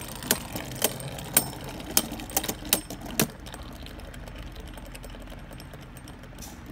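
Two Beyblade Burst spinning tops, Mirage Fafnir and Brave Valkyrie, collide in a plastic stadium with a quick series of sharp clacks over the first three seconds or so, then keep spinning with a steady whir.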